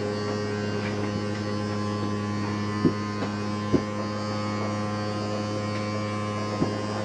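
Travel trailer's electric slide-out motor running steadily as it draws the slide room in: an even hum, with three short knocks from the moving slide about three, four and six and a half seconds in.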